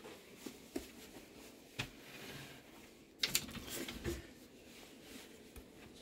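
Faint clicks and knocks as a louvered wooden bifold closet door is handled and pushed open, with a brief clatter about three seconds in.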